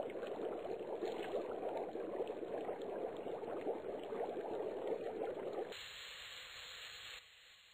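Water boiling in a saucepan, a dense bubbling crackle that starts suddenly. About six seconds in it gives way to a softer, steady hiss of steam, which drops quieter about a second later.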